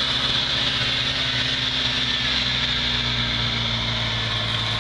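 Suzuki Samurai off-road 4x4's engine running at low, steady revs as it crawls up a steep dirt bank, over a steady high hiss.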